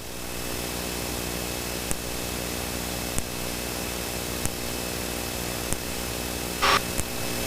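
Steady in-flight cockpit drone of a Cessna Citation V, its twin turbofans and air systems making a low hum with several steady tones on top. Faint ticks come regularly about every second and a quarter, and a brief burst of hiss comes near the end.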